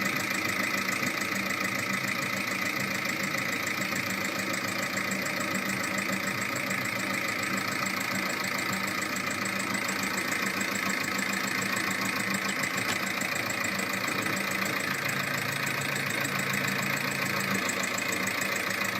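VW-group 1.9 TDI four-cylinder turbodiesel running steadily, with a fast, even ticking knock in its running sound. The noise comes from a defective hydraulic lifter.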